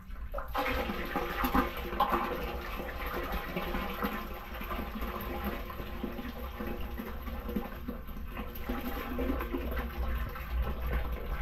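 Flush water gushing out of a small inlet pipe and splashing into the water in the sewer channel below, running through the freshly cleared drain.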